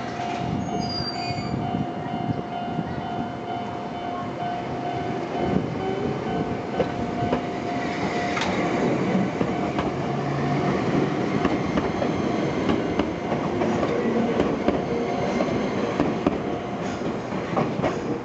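Enoden electric train passing over a level crossing, its wheels clattering and squealing on the rails. The crossing's warning alarm rings for roughly the first half and then fades out; the uploader notes that the alarm's rhythm is uneven.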